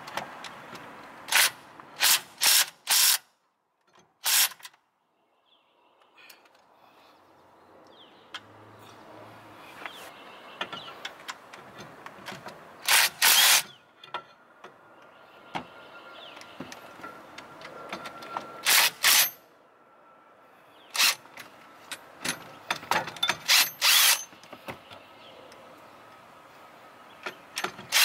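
Impact wrench firing in short hammering bursts through a 13 mm socket on extension bars, breaking loose the bolts that hold the CV axle's retaining plate. The bursts come in clusters with pauses between, a quick run of them near the start and another about two-thirds of the way in.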